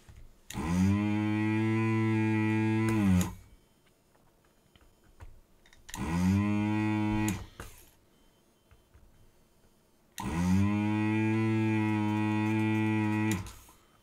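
Pro'sKit SS-331H desoldering gun's built-in vacuum pump switching on three times, about three, one and a half and three seconds long. Each run rises in pitch as the motor spins up, then holds a steady hum while it sucks molten solder out of a screw terminal's through-hole pins.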